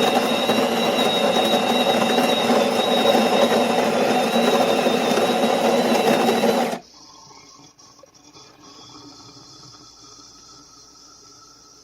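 Built-in grinder of a De'Longhi Magnifica Start bean-to-cup espresso machine running loud and steady, grinding beans for a latte, then stopping abruptly about seven seconds in, leaving faint quieter machine sounds.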